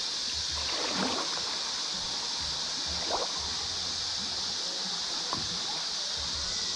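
A steady, high-pitched drone of evening insects ("all the bugs"), with a few soft water splashes about one, three and five seconds in.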